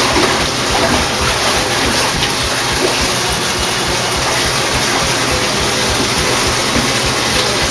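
Water rushing steadily into a filled bathtub, an even, unbroken hiss of water.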